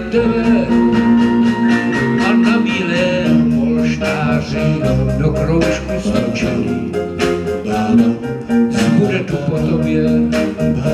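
Live band playing an instrumental passage of a swing-style song: bass guitar, electric guitar and keyboard over drums keeping a steady beat.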